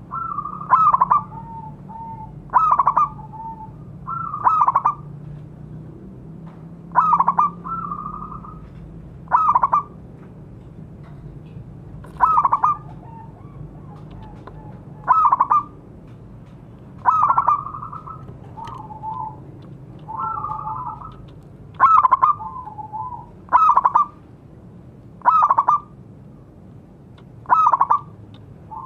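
Zebra doves (perkutut) calling: a string of short, bright cooing phrases repeated about every two seconds, some trailed by softer, lower notes.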